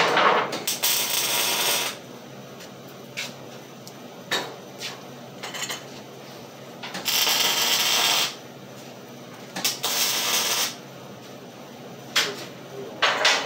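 Arc welding on steel, laid down as three short tack welds: each a burst of crackling hiss about a second long, the first near the start, the next two about seven and nine and a half seconds in. Light metal clinks and knocks sound between the welds.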